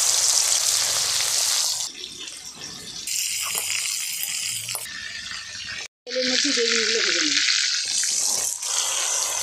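Shrimp frying in hot oil in a wok, a loud hissing sizzle that eases after about two seconds and then comes back. After a brief cut near the middle the sizzle returns loud, with diced eggplant going into the pan near the end.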